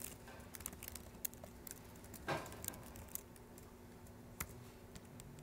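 Faint, scattered keystroke clicks on a computer keyboard, a few irregular taps over quiet room tone.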